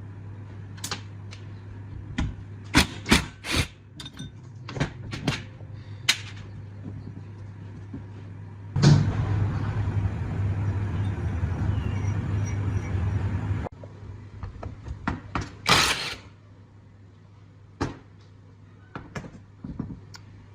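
Workshop sounds: a series of sharp clicks and knocks as parts and tools are handled. Then a power tool runs steadily for about five seconds and cuts off suddenly.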